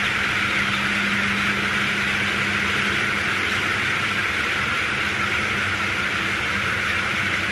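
Steady din of a large flock of broiler chickens peeping and chirping inside a poultry house, over a constant low machine hum.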